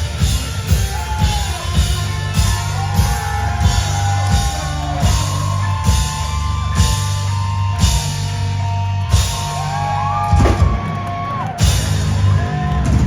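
Live rock band playing loudly: drum kit hitting steadily under distorted guitars, with a sung melody line over the top.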